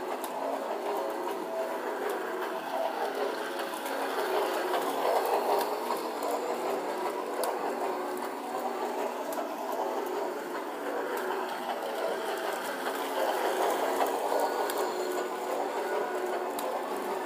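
Toy Christmas train running around its track: a steady whir of its small motor and gears with a light clatter of the wheels, growing louder twice, about five seconds in and again near fourteen seconds, as the train passes close.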